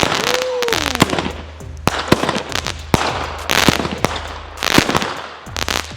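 Consumer fireworks going off: a rapid, irregular string of sharp bangs and crackling pops, with bursts of hiss between them.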